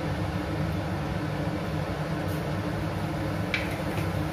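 Cumin seeds sizzling in hot mustard oil in a kadai, over a steady low hum, with a short pop about three and a half seconds in as the seeds begin to crackle.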